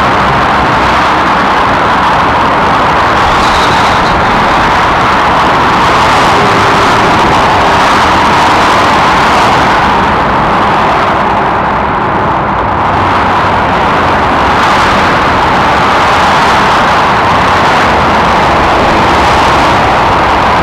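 Dense motorway traffic passing at speed: a steady tyre and engine roar from cars, vans and lorries, easing slightly about halfway through.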